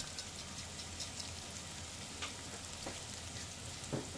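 Julienned ginger and chopped garlic frying in oil in a pot: a steady sizzle with many small crackling pops.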